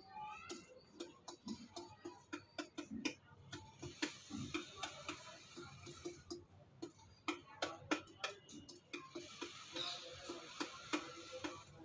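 Domestic pigeon pecking uncooked rice from a metal bowl: quick, irregular clicks of its beak striking the grains and the bowl, several a second.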